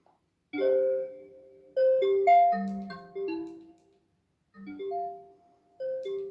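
A melody of bell-like, marimba-like notes played in short phrases with brief pauses between them.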